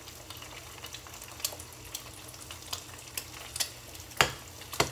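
Egg frying in hot olive oil in a pan, a steady sizzle with frequent small crackles and spitting pops. A sharp knock about four seconds in, with a second one soon after.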